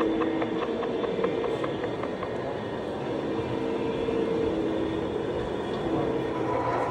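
Train running, with a quick regular clicking that fades out over the first two seconds and a faint low two-note tone that comes and goes.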